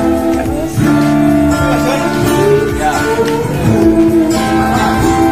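Acoustic guitar played live, strumming held chords that change every second or so, with a melody line carried over a microphone and loudspeakers.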